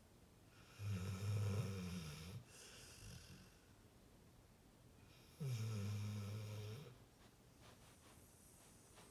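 A sleeping pit bull snoring: two long, low snores about four seconds apart, each lasting a second or more.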